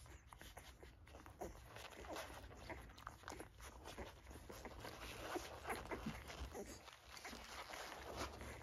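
Newborn Pungsan puppies nursing: soft suckling noises with scattered small squeaks and grunts, faint and irregular.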